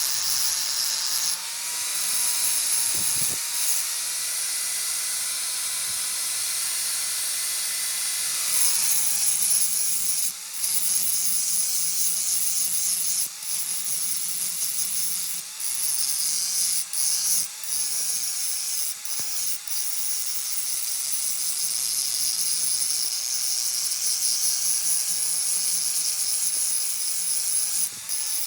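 Electric grinder working on iron: a steady motor whine under a loud high hiss, the pitch sagging and recovering again and again as the tool is pressed into and eased off the metal.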